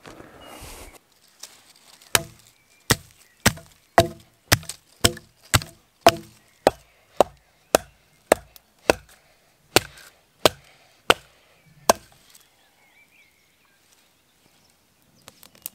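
Machete being batoned down through a stick of wood to split it: about seventeen sharp knocks, roughly two a second, that stop about three-quarters of the way in.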